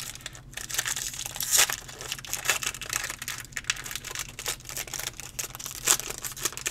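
Foil trading-card pack wrapper crinkling as it is handled, then torn open near the end with a louder rip.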